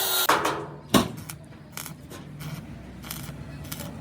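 Workshop metalwork: a steady noise cuts off just after the start, a sharp knock comes about a second in, and scattered light clinks and scrapes follow over a low hum.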